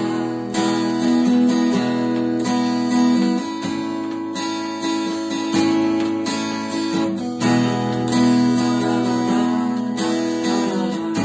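Acoustic guitar strumming chords steadily, with a firm downstroke every second or two, as an instrumental introduction before any singing.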